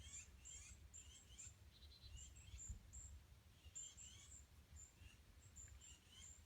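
Faint birds chirping, many short high calls repeating, over a low rumble.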